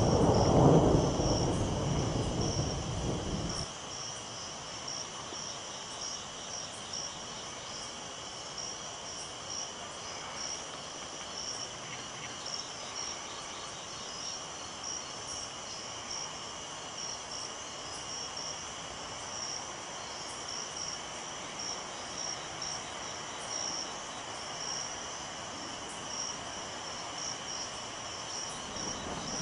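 Night-time insect chorus: a steady, high-pitched pulsing trill in two pitches. A loud low rumble fills the first three and a half seconds and stops abruptly.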